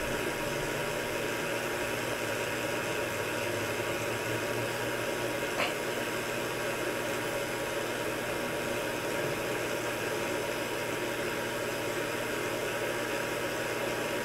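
Steady fan hum and hiss from running equipment, with a faint high tone held throughout and one small click about five and a half seconds in.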